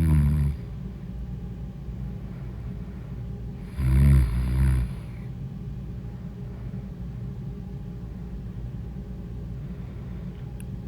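A person snoring loudly: one snore trails off just after the start, and another comes about four seconds in and lasts about a second. A steady low hum fills the gaps between them.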